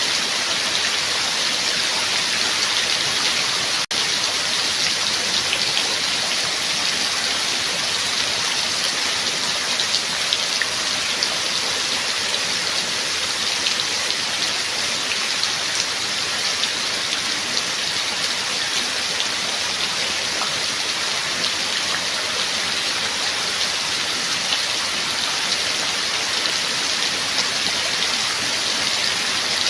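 Steady rain: an even hiss of many drops, with a momentary gap about four seconds in.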